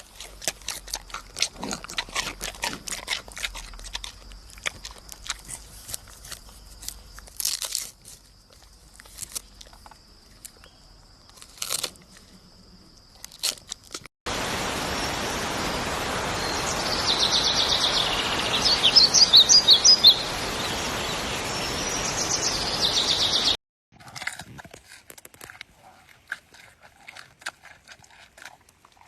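Panda crunching and chewing food in irregular sharp crackles. About halfway through, a steady outdoor hiss takes over, with a burst of bird chirps in it. Near the end, sparse crunching returns.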